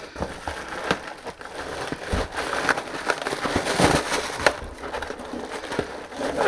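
Hands working a motor out of a central air unit: irregular clicks, knocks and crackling scrapes as parts are handled and pulled.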